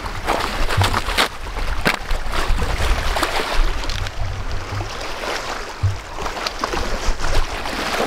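Small waves on a lake lapping and splashing against rocks at the shore, with wind rumbling on the microphone.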